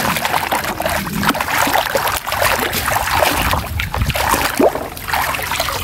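Water sloshing and splashing in a basin as a plastic toy sailing ship is swished and scrubbed through it by hand, irregular and churning throughout.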